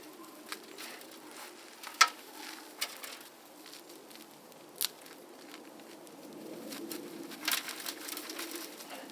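Yacon roots and potting soil being handled and pulled apart: scattered crackling and rustling, with a few sharp snaps, the loudest about two seconds in.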